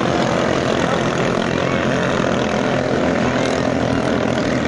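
Racing ketinting longtail boat engines running at full throttle, a steady, loud drone with no let-up.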